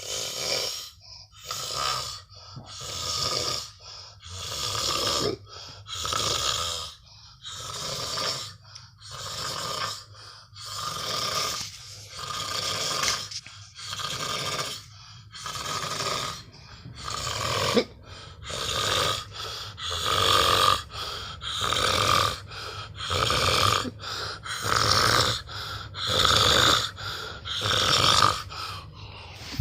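Heavy snoring: one noisy snore about every one and a half seconds, in a steady, repeating rhythm.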